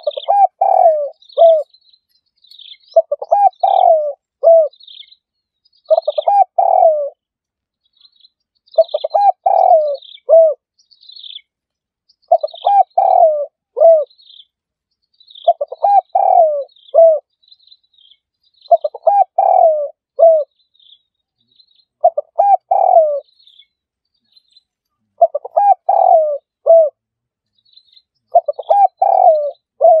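Spotted dove cooing: a phrase of several low hooting notes repeated about every three seconds. Small birds chirp faintly in the background.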